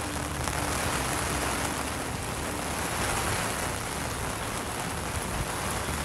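Heavy rain pouring steadily, an even dense hiss of water falling on foliage and ground.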